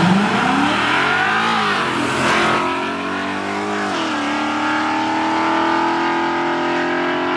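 A small-block V8 pickup truck and a Ford Mustang launching side by side in a drag race. Their engines rev hard, with the pitch climbing and dropping back at gear changes about two and four seconds in, then holding a steady, slowly rising drone as the cars pull away down the strip.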